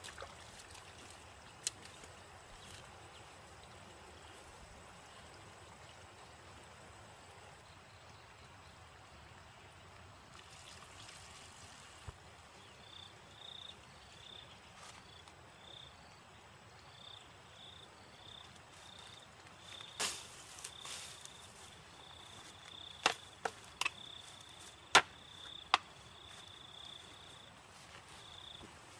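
An insect chirping outdoors, a run of short high chirps that starts about halfway through and keeps going. About two-thirds of the way through come several sharp knocks and snaps, the loudest sounds here, as a wooden pole is handled and struck in the undergrowth.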